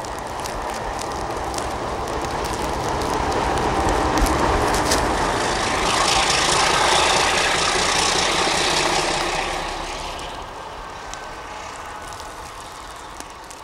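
Diesel locomotive with a snowplough passing through deep snow, its engine rumble and a hiss growing louder to a peak about halfway, then fading as it moves away.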